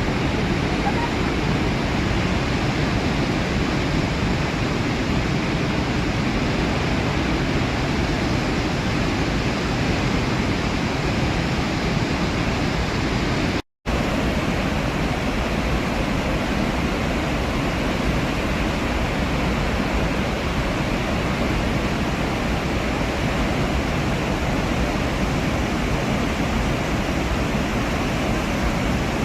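Iguazu Falls: a large waterfall's loud, steady rushing of falling water, heaviest in the low range. It cuts out completely for a split second about halfway through, then resumes unchanged.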